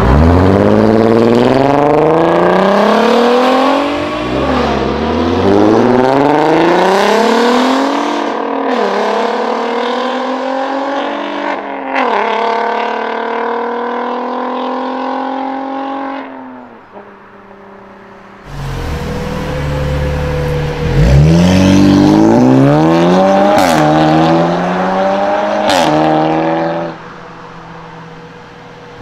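A Volkswagen Golf accelerating hard away through the gears, its engine note climbing and dropping at three upshifts before fading into the distance. After a short lull a second car accelerates hard through several upshifts, with two sharp exhaust pops near the end.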